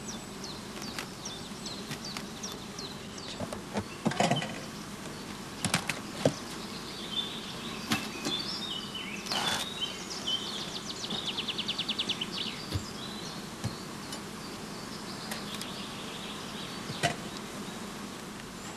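Honeybees buzzing around an opened hive, a steady hum, with scattered knocks and a brief run of quick ticks from the hive boxes and frames being handled.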